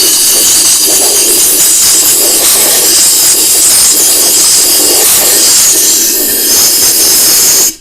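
Compressed-air blow nozzle blasting air into an Echo CS400 chainsaw's fuel tank to purge out old fuel: a loud, steady rushing hiss that cuts off for a moment at the very end.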